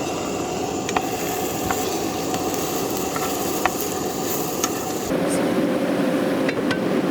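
Steady hiss of a running cooking appliance, with a faint hum and a few light clicks; the sound changes abruptly about five seconds in.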